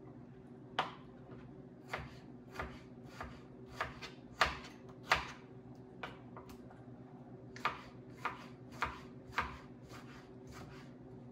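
Kitchen knife cutting a tomato on a cutting board: about fifteen sharp, unevenly spaced knocks as the blade strikes the board, the loudest a little under halfway through.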